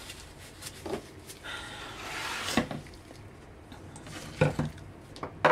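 Plastic jugs of soap batter being moved around on a tabletop: a brief scrape followed by several sharp knocks as they are set down, the strongest about halfway through and just before the end.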